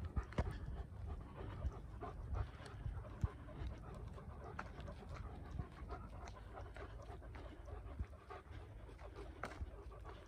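A dog panting, with irregular footsteps and small clicks on a dry dirt lane over a steady low rumble.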